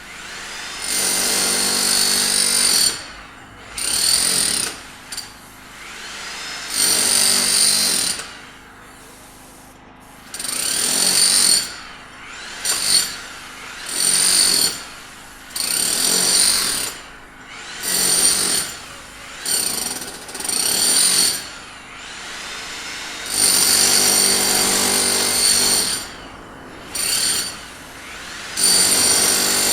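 Power tool at a sidewalk repair, run in about a dozen bursts of one to three seconds, each starting and stopping abruptly, with short pauses between them.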